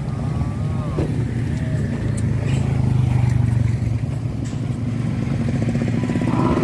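Vehicle engine running steadily with a low, even hum, a little louder around the middle.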